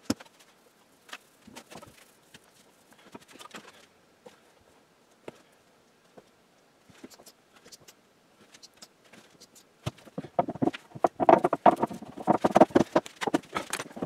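Oak boards being handled on a workbench: scattered light taps and knocks, then from about ten seconds in a louder, busier run of wooden knocks and scrapes as a board is lifted and tipped onto its edge.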